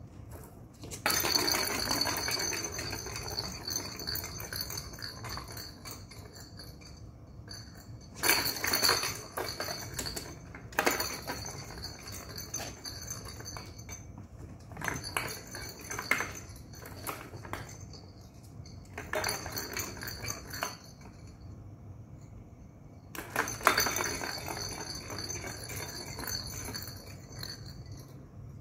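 Small plastic balls rolling and clattering around the track of a round cardboard-scratcher ball-track cat toy as a kitten bats at them. The sound comes in about six bursts with quieter gaps between.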